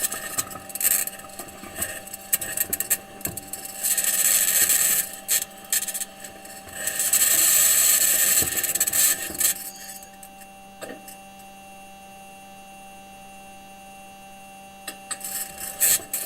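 Perseverance rover's metal wheels grinding and scraping over rocky Martian ground, picked up by the rover's own microphone, with steady electronic hum tones underneath. About ten seconds in, the grinding mostly stops and leaves the hum with a few faint scratches. The scraping comes back near the end.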